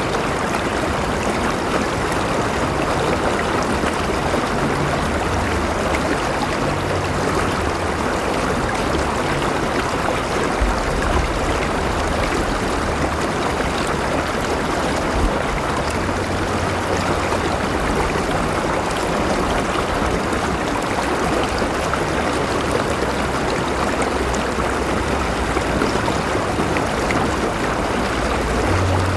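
River water flowing steadily, a continuous rushing and gurgling of a stream.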